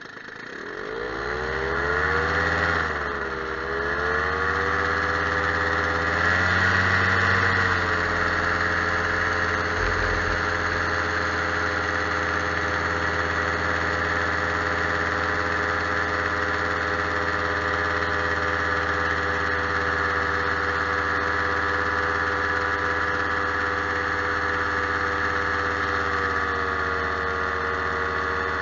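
Powered paraglider's engine throttling up in flight: its pitch climbs over the first couple of seconds, dips briefly, climbs again, then runs steadily, easing slightly near the end.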